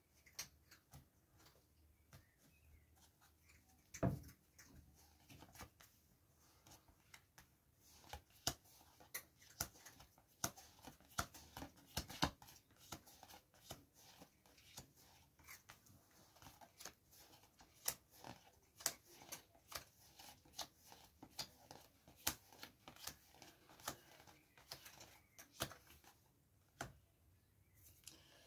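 Playing cards being dealt one at a time onto a cloth-covered table: a steady stream of soft card clicks and snaps, with one louder thump about four seconds in.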